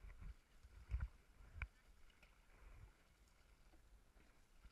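Near silence with a faint hiss, broken by three soft knocks in the first two seconds, the last with a short click: hands handling the camera.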